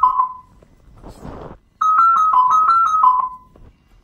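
Smartphone alarm ringing: a short melody of bright, piano-like electronic notes that plays, pauses about a second and a half, then plays again. A short burst of rustling noise falls in the gap between the two phrases.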